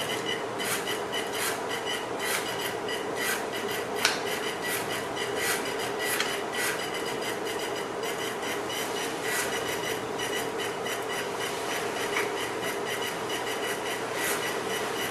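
Small geared drive motors of a Robbo robot whirring with a steady whine and irregular clicks as the robot edges along a line under program control.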